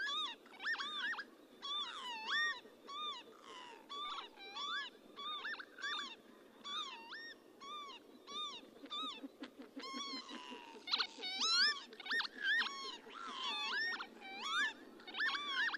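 Northern lapwings calling: a dense run of short, slurred 'pee-wit' calls, each rising then falling, from several birds calling over one another at about two calls a second, loudest about eleven seconds in.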